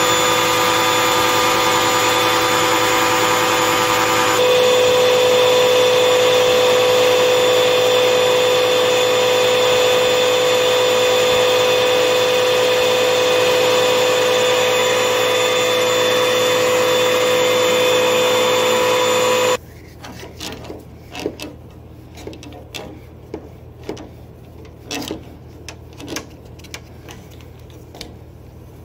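Vacuum cleaner running steadily with a whine while it sucks dust from refrigerator condenser coils, its note shifting about four seconds in. It switches off abruptly about twenty seconds in, leaving scattered light knocks and scrapes.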